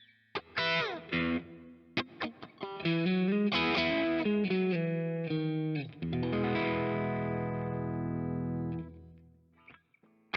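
Vintage V6H Icon HSS electric guitar played solo: a few short chord stabs, then a quick run of single notes, then a chord left to ring that fades out near the end.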